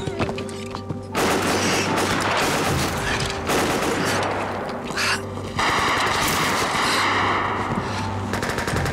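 Long, rapid bursts of submachine-gun fire starting about a second in, denser and louder in the second half.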